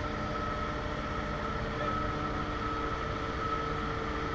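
Airport ground equipment running steadily, a low drone with a constant high whine held throughout.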